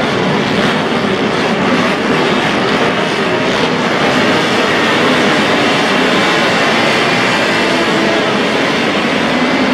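Vintage racing motorcycles, built no later than 1972, running hard on a race circuit: a loud, steady mix of engine noise.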